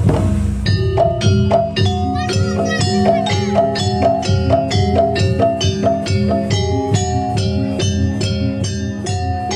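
Traditional Javanese percussion ensemble accompanying Jaranan Buto, played loud with a steady, fast beat: rapid ringing metallophone and gong-chime strikes over drums. A deep thud opens it, and a few short sliding tones come in about two seconds in.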